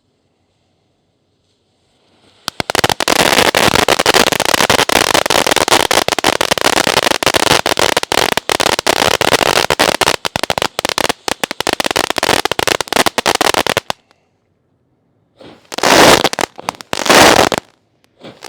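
Fountain-aerial (hybrid fountain) firework going off. About two seconds in it starts a dense, continuous crackling that lasts roughly eleven seconds. After a short pause, two loud bursts come near the end.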